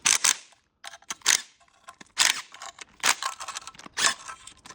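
Irregular sharp metallic clicks and clinks from hand tools and bolts during work on the sump, about one or two a second.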